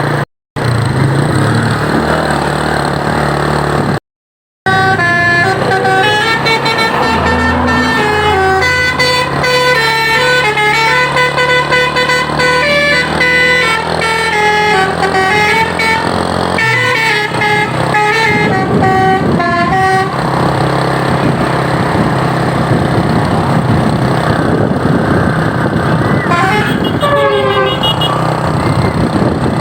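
Truck's Basuri 'telolet' musical air horn playing a melody of stepped notes over the running engine, from about five seconds in until about twenty seconds. After that the engine noise carries on, with a few more sliding horn notes near the end. The audio cuts out twice briefly near the start.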